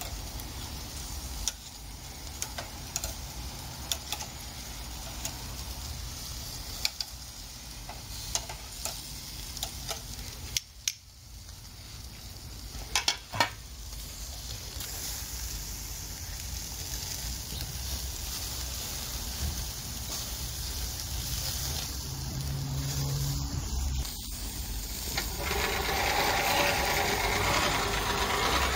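Chicken skewers and patties sizzling over a charcoal grill, with scattered sharp pops and clicks. Near the end a louder steady rushing sets in as the grill's hand-crank blower starts forcing air into the coals.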